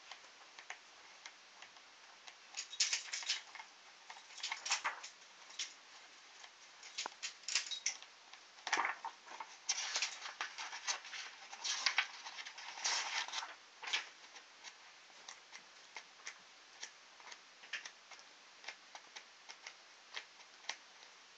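Pages of a thick bound stack of printed paper being turned one after another, each page flicking over with a light tick. Through the middle the flipping gets quicker and louder, with bursts of paper rustling.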